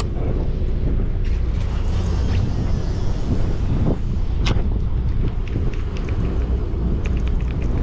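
Steady wind buffeting the microphone on a sportfishing boat at sea, over a low rumble. There is a single sharp tick about four and a half seconds in, and a run of faint, rapid clicks near the end.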